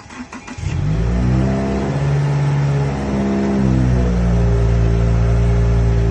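Subaru WRX's turbocharged flat-four engine cranked and started through a muffler-delete axle-back exhaust. It catches under a second in and runs at high start-up revs, then drops to a steady idle near the middle.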